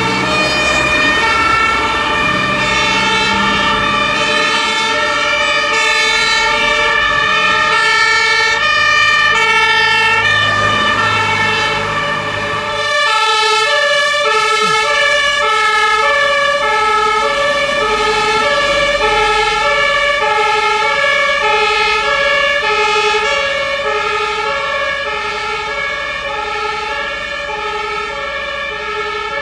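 German fire engines' two-tone sirens (Martinshorn) alternating between a high and a low note. In the first part more than one siren overlaps over a low rumble. About 13 seconds in the sound cuts to a single two-tone siren, which fades slightly near the end.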